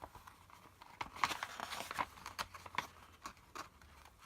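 Faint paper rustling with light scattered ticks as the pages of a model kit's instruction booklet are handled and turned.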